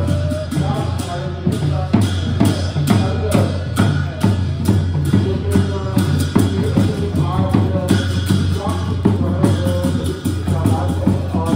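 Music with a steady, evenly spaced drum beat and a wavering melodic line over it.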